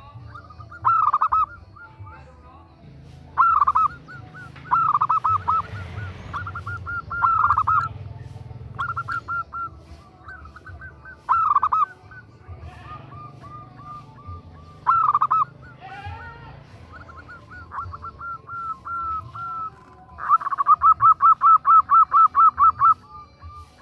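Zebra doves (perkutut) cooing in quick staccato runs of notes. Several calls overlap, and the loudest is a run of about a dozen notes near the end. This is the calling of a female perkutut to a male.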